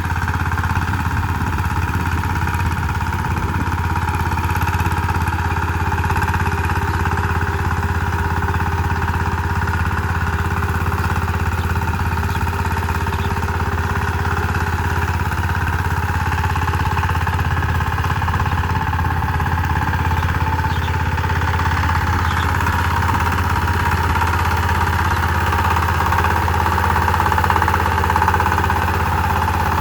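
Power tiller engine running steadily and unbroken, with a strong low hum.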